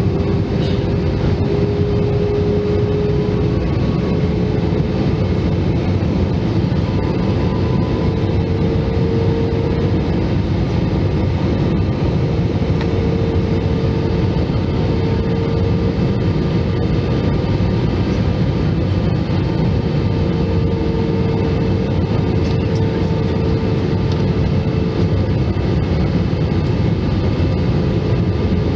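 Airliner cabin noise in flight: the steady roar of the turbofan engines and the rushing air, heard from a window seat over the wing. A steady engine hum runs through it, wavering slightly in pitch.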